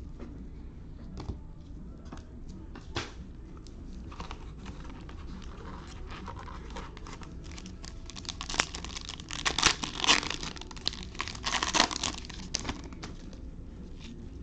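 A plastic trading-card pack wrapper being handled with scattered small clicks, then torn open and crinkled loudly for several seconds, starting about two-thirds of the way in.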